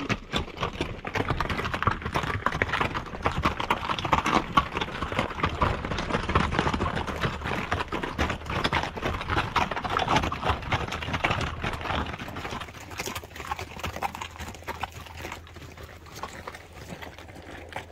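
Hooves of a passing string of pack animals clip-clopping on the trail: many overlapping, irregular steps that thin out toward the end.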